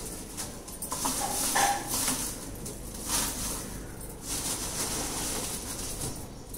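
Dry garden waste rustling as it is dropped and spread into a compost container for a new layer, in several separate rustles.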